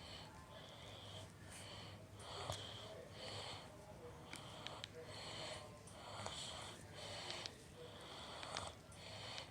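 Faint, repeated breathy noises from a person, one about every second.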